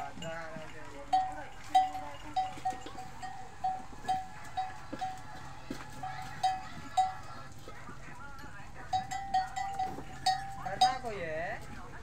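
A small metal bell hung on a goat's neck clinks over and over at an irregular pace, about once or twice a second, as the goats jostle and feed, among scattered knocks and clicks. A brief call sounds near the end.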